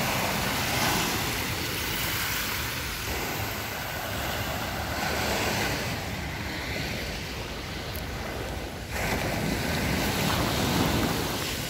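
Small sea waves washing and breaking on a sandy shore, with wind blowing on the microphone. The noise shifts abruptly a few times.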